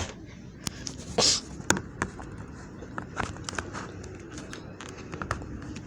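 Rain falling steadily, with irregular sharp ticks scattered throughout and a brief rustle about a second in.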